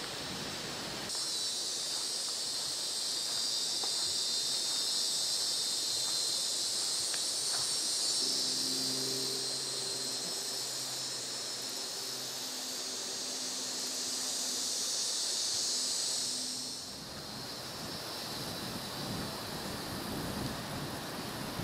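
Dense summer insect chorus, a steady high buzzing hiss that starts about a second in and cuts off sharply near the end. Through its middle stretch, deep drawn-out bullfrog calls come and go under it.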